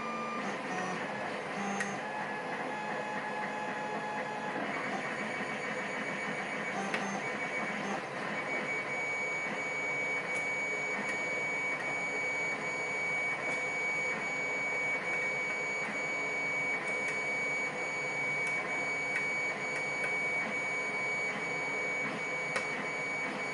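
A steady mechanical whir with several high, steady whining tones fills the background. Faint scattered ticks and scrapes of a hook pick and tension wrench working the pins of a lock sound over it.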